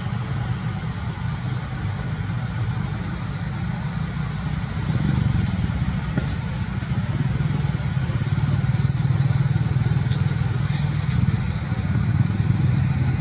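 A vehicle engine running steadily with a low rumble. Two brief high chirps about two-thirds of the way in.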